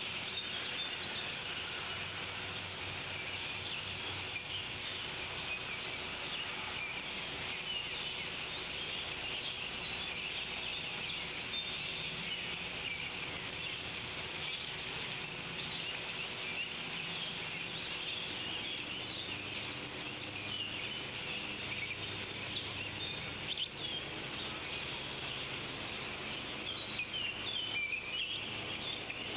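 Many small birds chirping and singing as a steady outdoor chorus over a faint hiss, with the chirps thicker near the end.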